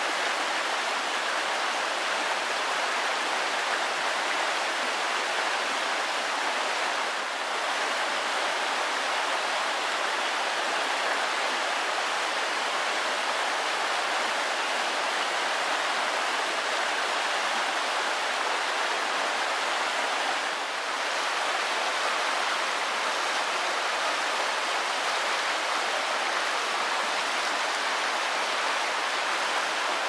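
River water spilling over a low concrete dam and rushing over the rocks below: a steady rush of white water.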